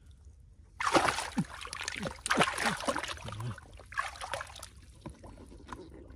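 Water splashing and sloshing in shallow field water as hands churn and grope through it for fish, in irregular bursts starting about a second in and easing off near the end.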